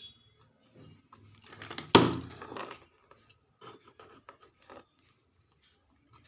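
Repair handling at a circuit board: scraping and light clicks, with one sharp knock about two seconds in.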